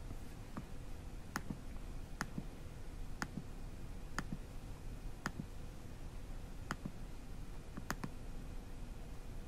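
Computer mouse clicking, about nine short, faint clicks roughly a second apart, some in quick pairs, as the video player's seek bar is clicked to skip ahead.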